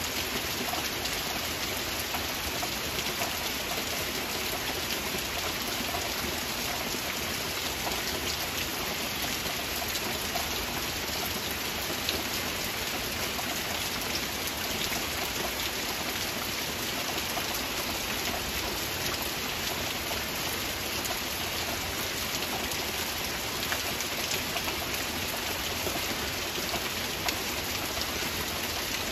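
Heavy rain falling steadily: a dense, even hiss with a fine patter of individual drops.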